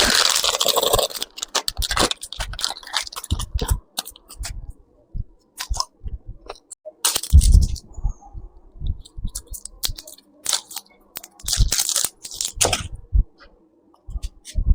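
Close-miked eating of chocolate: a rustling, tearing sound at the start, then bites and chewing in separate crunchy bursts, the loudest a few seconds in and again near the end.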